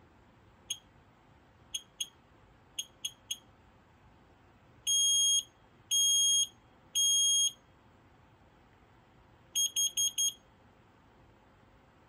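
FireX FADCM smoke and carbon monoxide alarm sounding its self-test, one high shrill tone throughout. A few short chirps come first, then three long beeps (the temporal-three smoke pattern), then four quick beeps (the carbon monoxide pattern).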